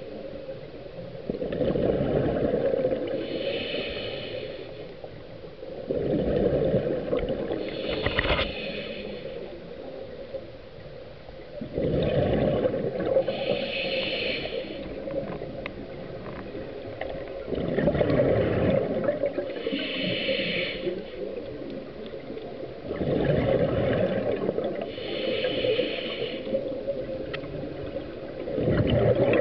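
Scuba diver breathing through a regulator underwater: a hiss with each inhale, then a rush of bubbles on each exhale, repeating about every five to six seconds.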